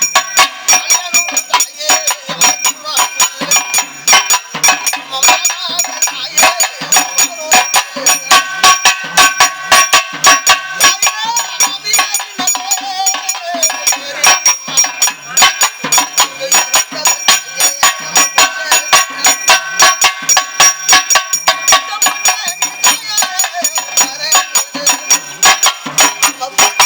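Pambai drums beaten with sticks in a fast, steady rhythm, several strokes a second, with ringing metallic tones held over the beat: temple pambai isai.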